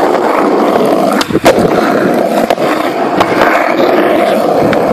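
Skateboard rolling over rough asphalt, its wheels making a steady grinding rumble. There is a sharp clack about a second and a half in and a few lighter clicks later.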